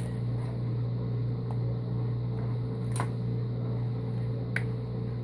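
An egg tapped against the rim of a small nonstick frying pan as it is cracked: a few short sharp taps about a second and a half apart, the loudest about three seconds in. A steady low hum runs underneath.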